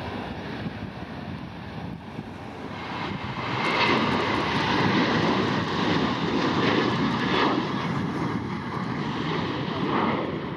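Airplane engines passing close by, a loud noisy rumble that swells about two seconds in, stays strong for several seconds, then eases off near the end.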